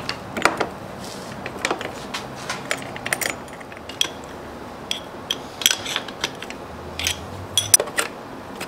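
Cast-iron tailstock of an Atlas lathe being fitted onto the bed ways and adjusted by hand: a string of irregular sharp metal-on-metal clinks and taps, some close together, over a low steady hum.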